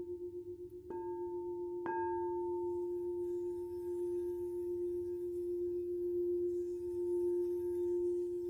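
Singing bowl struck twice, about one and two seconds in, then ringing on in a long, steady tone with a fainter higher overtone.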